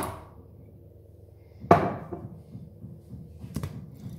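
Sharp knocks of kitchen items set down on a hard worktop: one at the start, a louder one about a second and a half later, and a fainter tap near the end.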